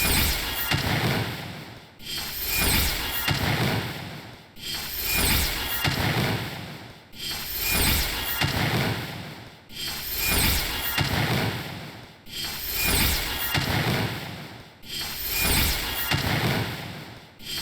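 A short, rough rasping sound effect played on a loop, repeating about every two and a half seconds. Each repeat starts suddenly, swells and then fades away.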